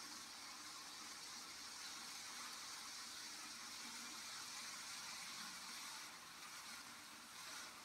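Faint, steady whir and hiss of two Z-scale model freight trains running on the track.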